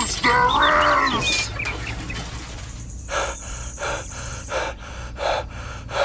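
A short voiced gasp in the first second and a half. From about three seconds in, a rhythmic pulsing follows, about three beats a second.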